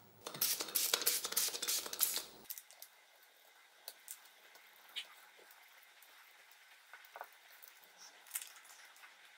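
Close scratching and rustling of small parts and tools being handled on a wooden bench for about two seconds. Then it is mostly quiet, with a few faint light taps while a cotton swab is worked over the circuit board to clean off moisture damage.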